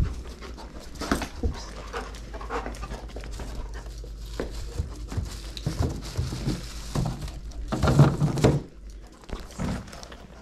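Giant Schnauzer panting and sniffing, quick breaths in a rough rhythm, with a louder, longer burst about eight seconds in.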